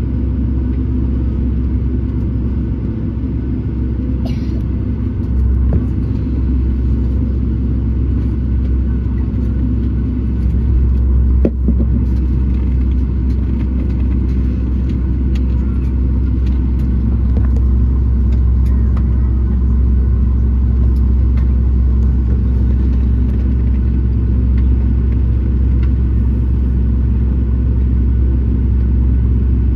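Cabin noise of a Boeing 737-900ER taxiing, heard from a window seat beside its CFM56 engine: a steady low rumble from the engines at taxi power and the rolling airframe. A single sharp knock comes about eleven seconds in.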